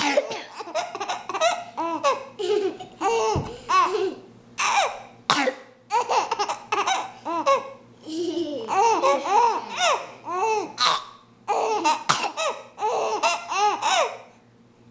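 A four-month-old baby laughing in repeated bouts of high, quick giggles, set off by short coughs that come between the bouts.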